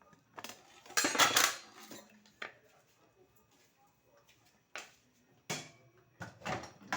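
Kitchen containers and dishes clattering as they are handled and set down: a dense run of clinks and knocks about a second in, then single knocks spread through the rest.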